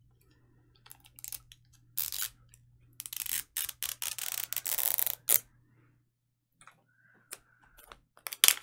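Foil-and-plastic wrapper being torn off a Mini Brands capsule along its perforated tear strip. A few light clicks and crinkles come first. About three seconds in there are roughly two seconds of continuous tearing and crinkling, and sharp plastic clicks follow near the end as the capsule is handled.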